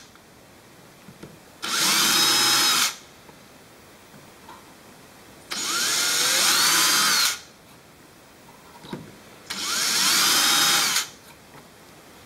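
Handheld power drill boring pin clearance holes deeper into a G10 (fiberglass-epoxy) handle scale, run in three short bursts of one to two seconds each. The motor's pitch rises as each burst starts, then holds.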